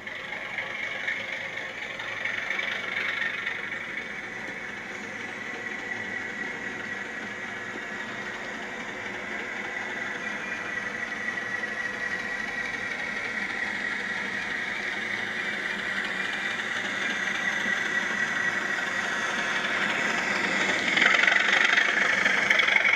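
Model railway locomotive running on track, a steady electric motor whine with wheel and track rumble, growing louder and sharply louder near the end as the train comes closer.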